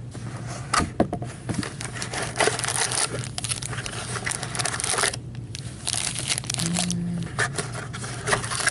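A cardboard box of trading-card packs being opened by hand: cardboard and foil pack wrappers rustling and crinkling with sharp clicks, louder and denser from about two to five seconds in.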